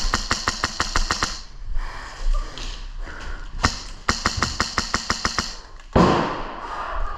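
Airsoft gun firing two rapid full-auto bursts of sharp clicking shots, about nine a second, with a sudden loud thump about six seconds in.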